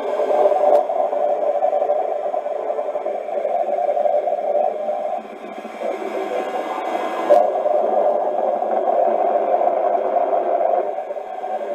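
Shortwave regenerative receiver playing an unidentified signal, not Morse code: a steady, hissy buzz held in a narrow mid band. It drops back about five seconds in and returns, with a sharp click about seven seconds in.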